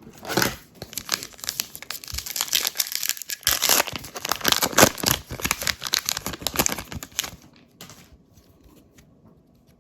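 Crinkly wrapper of a Topps Heritage baseball card pack being torn open and crumpled by hand, a dense crackling that runs for about seven seconds and then stops.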